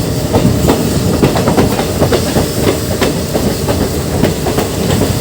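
A passenger train running along the track: a steady rumble with a fast, uneven clatter of wheels over the rails.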